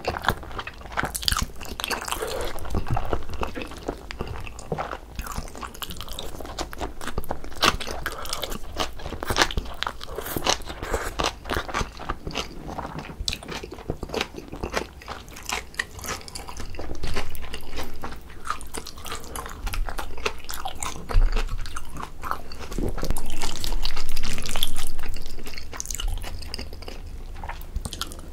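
Close-miked eating sounds of a person slurping and chewing black-bean sauce instant noodles: wet, irregular mouth clicks and smacks, louder in a few stretches.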